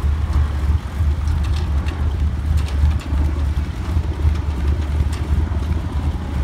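Engine of a rat-rod flatbed truck with an exposed engine, running steadily with a deep low note as the truck drives slowly past.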